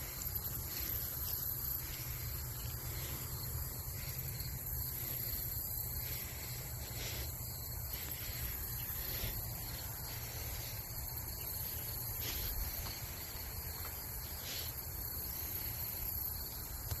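Outdoor ambience: a steady high-pitched insect chorus, such as crickets, over a constant low rumble.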